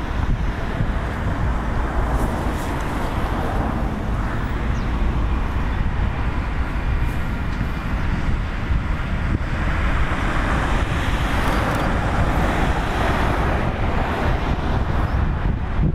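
The RM31 Standard railcar approaching on the track, a steady vehicle rumble and rush that builds from about ten seconds in as it draws nearer, with wind buffeting the microphone.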